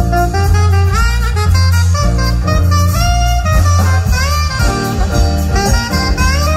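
Jazz big band playing, with a saxophone soloing in front over a low bass line and drum kit.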